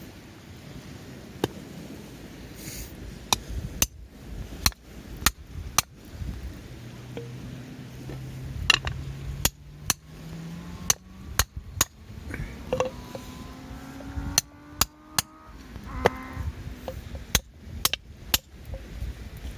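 Repeated sharp strikes of a hand tool, irregularly spaced at about one a second, with some strikes louder than others.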